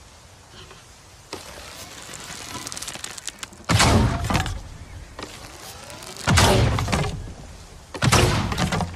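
Heavy bow and arrow sound effect: a creaking, ticking draw that builds for about two seconds, then three loud heavy hits of arrows being loosed, the first about halfway through and the others about two and a half and two seconds later, each ringing away briefly.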